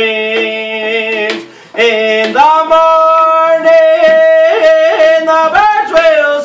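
A man singing in long held notes while striking a hand-held frame drum with a drumstick in a steady beat, about three strokes a second. The singing breaks briefly about a second and a half in, then resumes on a long held note that slides near the end.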